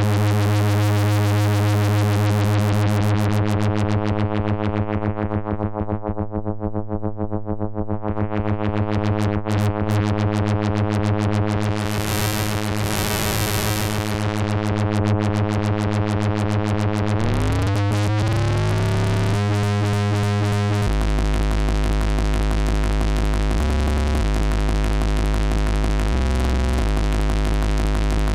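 Moog Werkstatt-01 analog monophonic synthesizer playing a low, buzzy dub bass tone that pulses rapidly while its filter closes down and opens up again. About two-thirds through, the pitch glides upward, then a lower bass note repeats in a steady rhythm.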